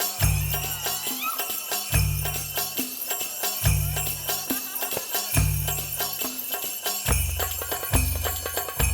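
Performance music: a deep bass note about every second and a half, coming twice as fast from about seven seconds in, under busy high jingling percussion.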